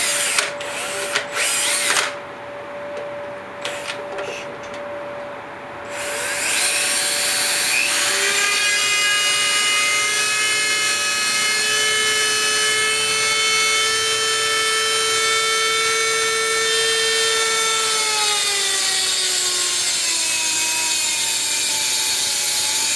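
Dremel rotary tool grinding a clip groove into an electric motor's steel shaft while a cordless drill spins the shaft: a steady high power-tool whine. It dips quieter for a few seconds near the start, then holds a strong steady whine that slides down in pitch over the last few seconds.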